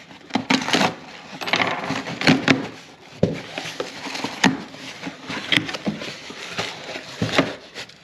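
Cardboard shipping box being opened by hand: cardboard and tape rustling and tearing, with scattered sharp knocks as the box and its flaps bump the wooden tabletop.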